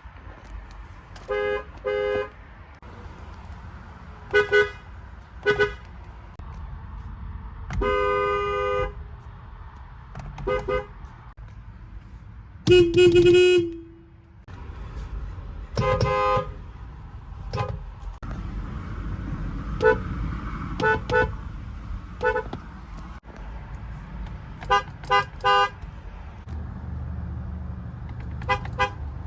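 Car horns sounded one after another, mostly in short taps and quick double or triple toots. There is a longer honk about eight seconds in and the loudest, lower-pitched honk about thirteen seconds in, with a steady low rumble underneath.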